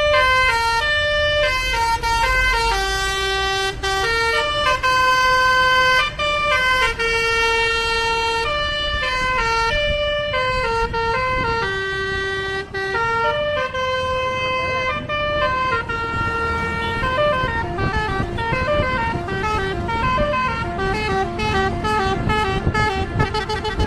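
A telolet basuri multi-tone bus horn playing a tune: a string of held notes, then about two-thirds of the way in a fast run of quickly alternating notes.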